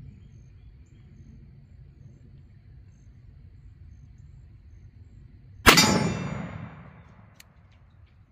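A single shot from a ported .500 S&W Magnum revolver about six seconds in, followed by an echo that dies away over about a second and a half.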